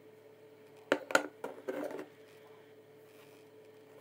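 Acrylic layers of a Pibow Raspberry Pi case being handled and fitted together: two sharp plastic clicks about a second in, then a short scraping rattle, over a faint steady hum.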